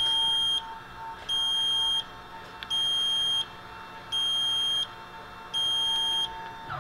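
E-Stopp electric emergency brake controller beeping while it cycles: five high, evenly spaced beeps, each about 0.7 s long, in time with the button's blinking LED ring. A faint steady hum under the beeps cuts off near the end.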